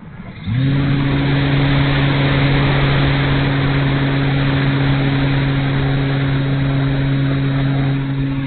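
The E-flite Night Radian glider's electric motor and propeller spin up abruptly about half a second in, then run at a steady drone over the hiss of passing air. The drone eases slightly near the end.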